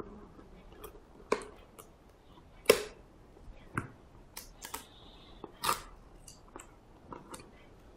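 Pocket-knife blade slitting the seal on a small cardboard box, and the box being handled: a string of sharp clicks and snaps with a short scrape, the loudest snap nearly three seconds in.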